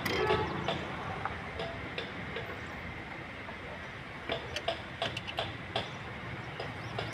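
Scattered light clicks and taps from hands working on parts in a car's engine bay. They come irregularly, with a cluster about four to six seconds in.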